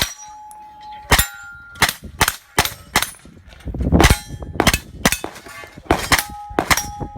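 A string of about a dozen gunshots, roughly two a second, fired at steel targets; several hits are followed by the short ring of a struck steel plate.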